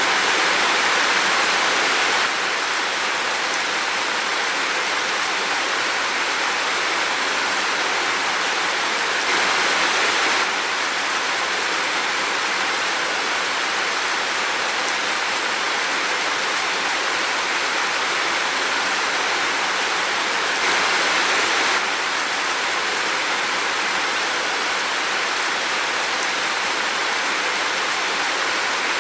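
Heavy rain falling steadily, a dense even hiss with no single drops standing out. The loudness rises slightly for about a second twice, roughly a third and three quarters of the way through.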